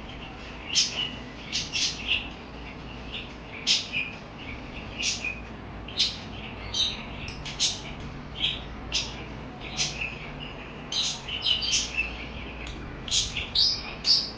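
Pet parakeets chirping: short, sharp, high chirps coming irregularly, often several in quick succession.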